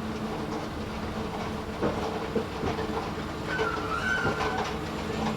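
Schindler escalator running with a steady hum and clattering rattle, with a few knocks about two seconds in and a brief squeal around four seconds in. It is an abnormal noise that the uploader suspects is a fault.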